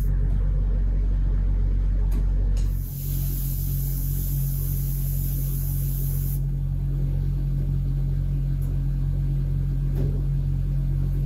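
Sandblasting cabinet: the blast gun hisses in two short spurts about two seconds in, then blasts steadily for a few seconds before cutting off. Under it a machine drones loud and low, with a slight pulse about twice a second.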